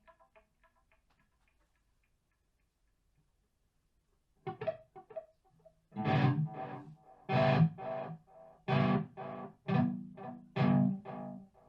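Background music: a soft passage dies away, a few seconds of near silence, then a louder band track with a strong rhythmic beat starts about six seconds in.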